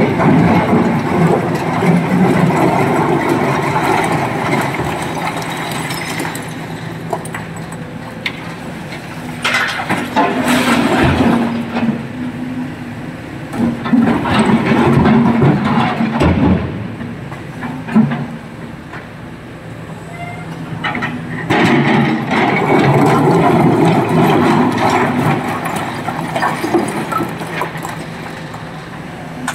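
SANY 225 hydraulic excavator's diesel engine running steadily under load while broken stone is scooped and tipped into a steel dump-truck body, with several long rattling crashes of rock and sharp knocks.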